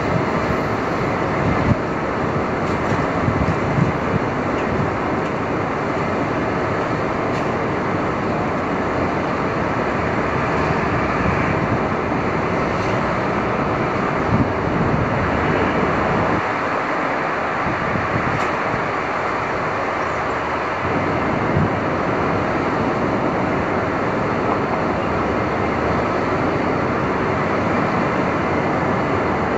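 Manhattan street traffic: a steady dense wash of passing vehicles, with a few brief knocks and the low rumble easing for a few seconds past the middle.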